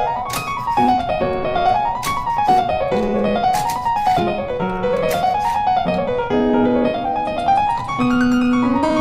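Background piano music: a melody rising and falling in repeated arpeggio-like runs over a bass line.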